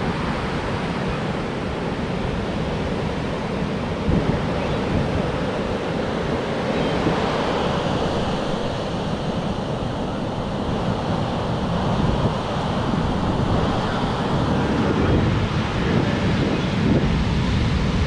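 Heavy storm-swell surf breaking and washing up the beach: a steady rushing of whitewater, with wind buffeting the microphone.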